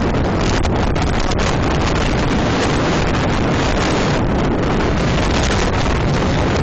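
Strong wind buffeting the microphone in a steady, loud roar, from a constant 40 mph wind with gusts over 60 mph.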